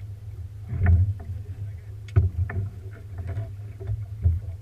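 Fishing boat on the water: a steady low hum with irregular knocks and thumps about once a second.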